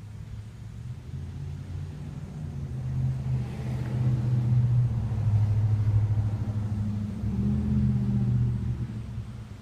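A motor vehicle's engine passing by, growing louder over the first few seconds, staying loudest through the middle and fading away near the end.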